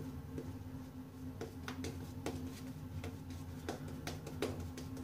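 Shaving brush working lather over a stubbled chin and jaw: a run of irregular small wet clicks and crackles, getting busier from about a second and a half in, over a steady low hum.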